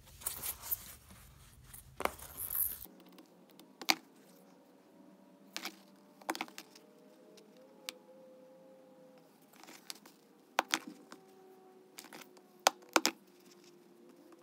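Utility knife slitting the rubber sheath of a flat two-wire power cord between its conductors, with scattered sharp clicks and short scrapes of the blade and the cord being worked by hand.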